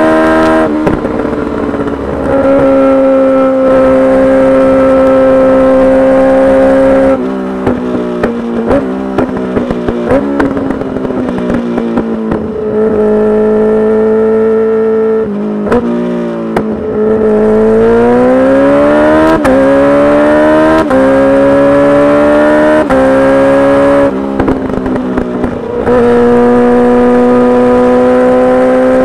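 Kawasaki Ninja H2's supercharged inline-four engine through a full titanium exhaust, ridden at high revs. It holds steady notes, then climbs in pitch and drops at each upshift. Between pulls it goes off the throttle with crackling pops from the exhaust.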